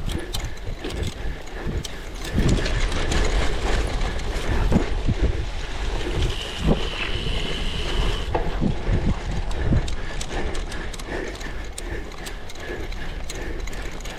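Cyclocross bike rattling and clattering over rough ground at race pace, with steady low wind rumble on the microphone. A brief high squeal sounds about six seconds in.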